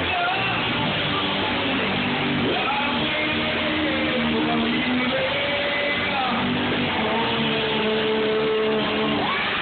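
Live rock band playing, with electric guitar chords over the drums, held notes and sliding lines; recorded loud and dull through a phone's microphone.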